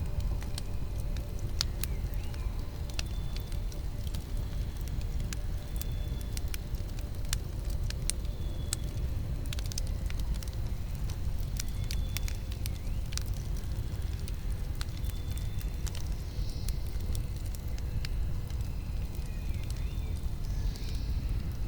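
Campfire burning, with a steady low rumble under frequent sharp crackles and pops from the burning wood.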